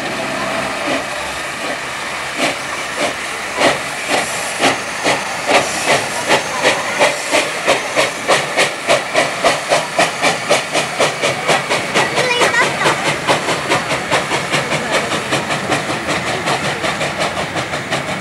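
Steam tank locomotive ČSD 433.002 starting a train: steam hissing at the cylinders, then exhaust chuffs beginning about two seconds in and quickening steadily to around three or four a second as it gathers speed.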